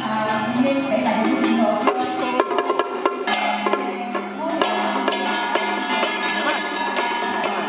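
Traditional Taiwanese temple-festival troupe music: a sustained, wavering melody line over a busy beat of drum, wooden clacks and cymbals.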